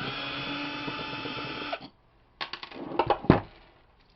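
A small handheld power tool motor runs steadily for about two seconds and stops, followed by a few sharp metallic clicks and one louder knock as the parts of the door handle are handled.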